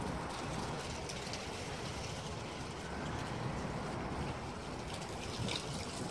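Steady outdoor background noise, a low rumble with a hiss over it, with a few faint clicks near the end.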